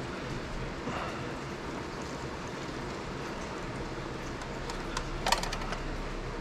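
Steady hiss and low hum of a fan running beside an electric lead-melting pot, with a brief sharp metallic clatter a little over five seconds in as the sinker mould and tools are handled.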